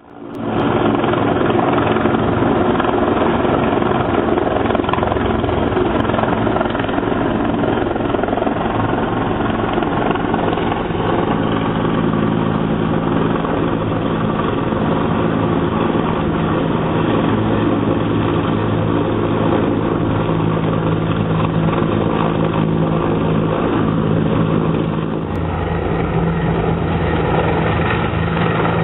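Helicopter flying nearby: a loud, steady rotor and engine noise whose tone shifts a little about 25 seconds in.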